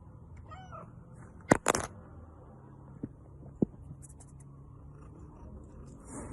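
A cat gives one short meow, then two loud sharp knocks come close together, followed later by two lighter taps.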